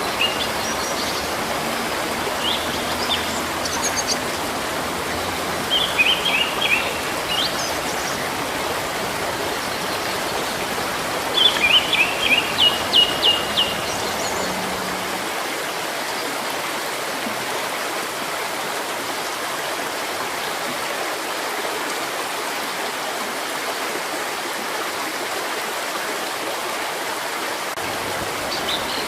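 Steady rush of running water from a stream, with small birds calling in short chirping phrases over it several times in the first half; the loudest is a quick run of chirps about twelve seconds in.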